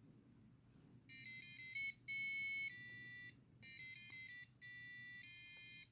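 Piezo buzzer driven by an Arduino's tone() command playing a programmed tune: a run of short, high-pitched beeping notes that step up and down in pitch, in two phrases with a brief pause between. The tune starts about a second in.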